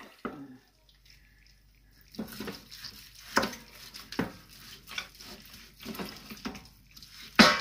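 Large kitchen knife cutting through a thick slab of boiled pork belly on a wooden chopping board: irregular knocks and crunches about once or twice a second, starting about two seconds in, with one louder knock near the end.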